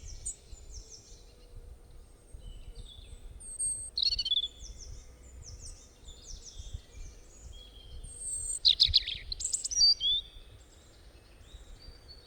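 Several wild birds chirping and singing, with different call types overlapping: quick repeated high chirps, and louder, harsher calls about four seconds in and again around nine seconds. A faint low rumble sits underneath.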